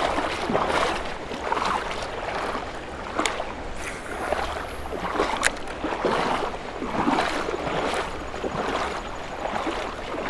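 River water rushing and lapping, swelling and easing in a quick, uneven rhythm, with a couple of sharp clicks.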